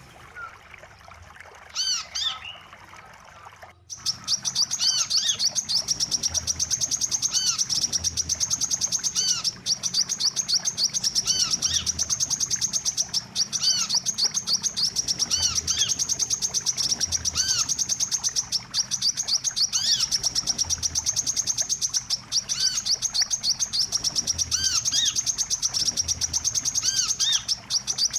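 Sunbird (wiceh) lure-call recording. A few separate looping chirps, then about four seconds in a fast, high, continuous chattering trill, with lower looping chirps scattered through it.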